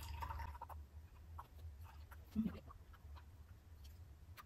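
Faint pouring of warm milk-and-cream panna cotta mixture from a small stainless saucepan into glass jars, with a few light clicks, over a steady low hum. A brief low sound about two and a half seconds in is the loudest thing.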